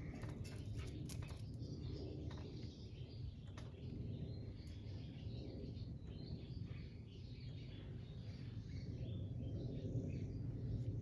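Small birds chirping and singing over a low, steady rumble of outdoor background noise, with a few light clicks in the first couple of seconds.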